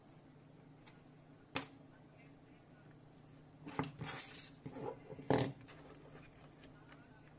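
Plastic bicycle lights and their USB charging cables being handled and set down on a cutting mat: a sharp click, then a few seconds of rattling and rubbing with a louder knock about five seconds in.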